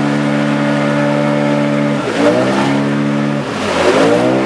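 Motorboat engine running steadily on the water, a low droning hum, with a couple of short swoops in pitch in the second half.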